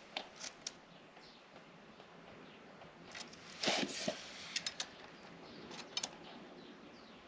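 Quiet handling sounds of a tape measure held against a bucket seat shell: a few soft clicks scattered through, with a brief louder rustle about three and a half seconds in.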